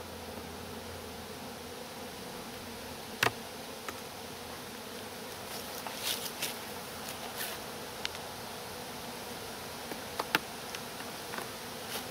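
Honeybees buzzing steadily at a hive entrance, with sharp wooden clicks and knocks from a hive tool and entrance reducer being worked at the entrance: the loudest about three seconds in, a cluster around six seconds, and two more near ten seconds.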